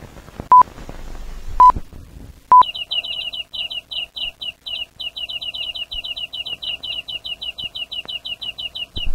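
Three short electronic beeps about a second apart, a countdown, then rapid chick cheeping, several short falling peeps a second, kept up steadily over a faint hum.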